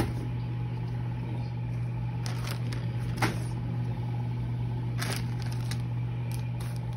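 A steady low hum, with a few short rustles and knocks of cardboard packaging and packing paper being handled, about two, three and five seconds in.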